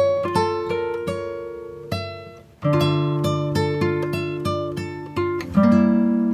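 Background music: an acoustic guitar plucking a melody, note after note, breaking off briefly about two and a half seconds in before a new phrase begins.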